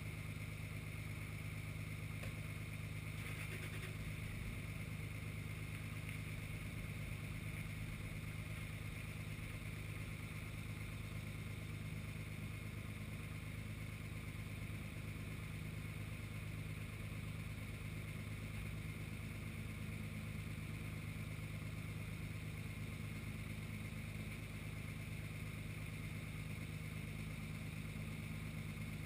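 Truck engine idling steadily, a low even hum that runs the knuckle-boom crane's hydraulics while the crane holds the pickup bed.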